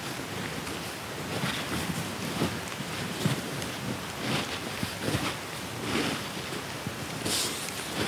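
Heavy rain and wind on a canvas lavvu tent: a steady rush of noise that swells every second or so.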